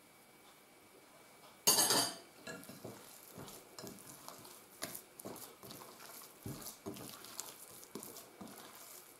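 A metal spoon clatters against a glass bowl just before two seconds in. Then hands knead soft dough in the bowl, with irregular soft squishing and light knocks.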